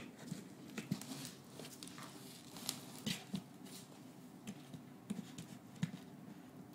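A cat shifting about inside a box, making irregular light scratches, taps and rustles.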